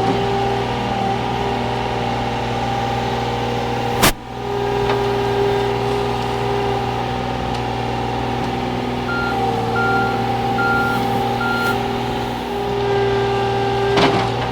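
Komatsu PC35 mini-excavator's diesel engine running steadily, with a hydraulic whine that shifts in pitch as the controls are worked. A sharp clank comes about four seconds in and again near the end, and four short evenly spaced beeps sound around the middle.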